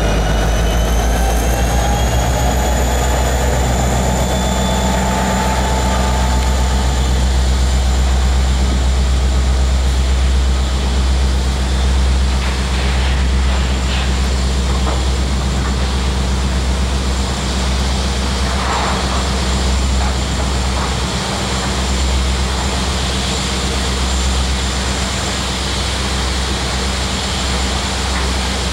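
Diesel engine of a Union Pacific EMD SD70AH locomotive, the train's rear distributed-power unit, passing close and then pulling away, a steady low engine drone. Thin high squealing tones from the wheels are heard in the first few seconds.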